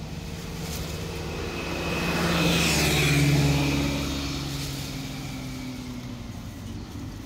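A motor vehicle passing by. Its engine grows louder to a peak about three seconds in, drops in pitch as it goes past, and fades away.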